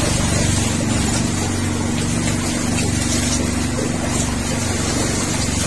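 Boat engine running steadily, a constant low hum with no change in pitch.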